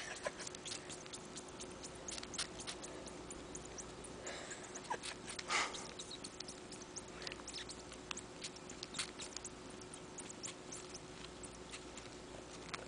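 Young kitten suckling on the bare skin of a person's arm: a quiet, irregular run of wet sucking clicks and smacks, with one louder suck about five and a half seconds in.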